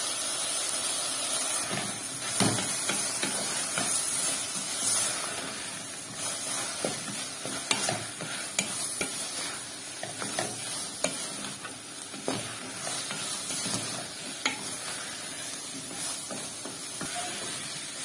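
Okra, diced onion and meat sizzling in hot oil in a stainless steel pot, stirred together with tomato paste by a wooden spatula that scrapes and knocks against the pot again and again.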